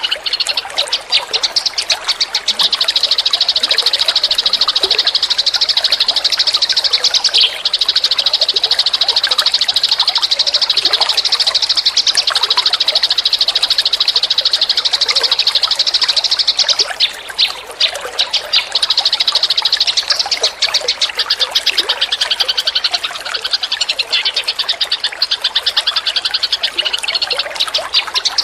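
Eurasian tree sparrows chirping in fast, nearly continuous trains of high chirps, broken by short gaps about two-thirds of the way through.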